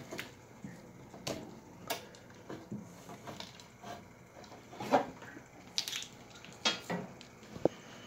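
Irregular clicks, light metallic knocks and rustling from hands working inside a metal fire alarm power supply cabinet, handling the battery leads. There is a short ping near the end.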